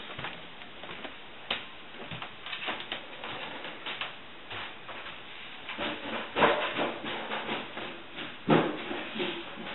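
Irregular rustling and light clicks, with two louder knocks about six and a half and eight and a half seconds in.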